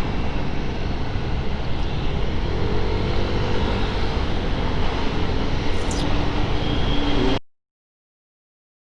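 Riding audio from a motor scooter at speed: steady wind rush with the scooter's engine hum underneath, picked up by a lapel mic wrapped in a cut surgical-glove finger under its foam, which keeps the wind noise down and the audio from clipping. The sound cuts off abruptly to dead silence about seven seconds in.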